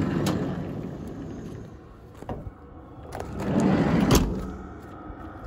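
Knocks and rumbling movement noise from stepping out of a van's side door onto gravel, with a sharp knock about four seconds in.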